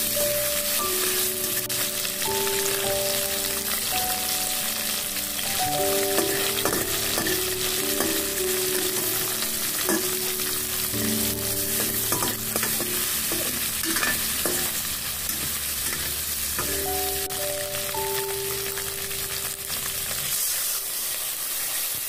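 Tofu cubes and tomato wedges sizzling as they are stir-fried in a stainless steel wok, with a metal spatula scraping and clinking against the pan, most often in the middle stretch. Soft background music with a simple melody plays underneath.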